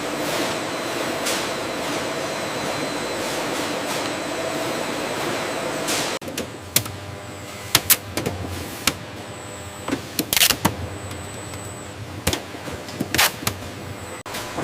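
Food-processing factory machinery running with a steady, dense noise and a few steady tones. About six seconds in it changes abruptly to a quieter running sound broken by short, sharp clicks and brief hiss-like bursts.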